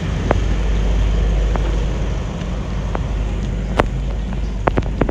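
Wind rumbling steadily on the microphone of a moving bicycle, with a few sharp clicks and rattles from the bike scattered through.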